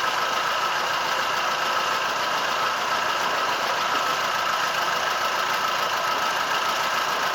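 A boat's engine running steadily at an even speed, with a constant hum over a wash of noise.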